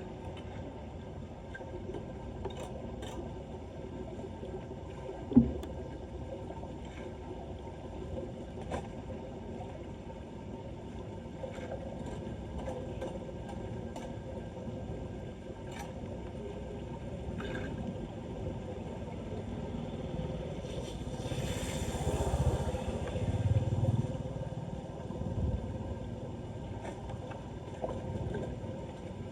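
Floodwater swirling and gurgling down a street storm drain as it is unclogged, with a sharp knock about five seconds in and heavier sloshing for a few seconds near the end.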